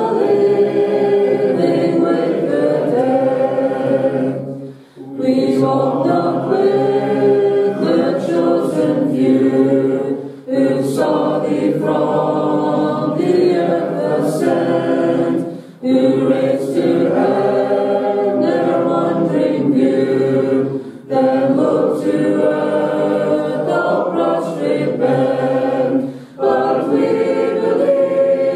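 Church congregation singing a hymn unaccompanied, in a cappella style, with a short breath pause between lines about every five seconds.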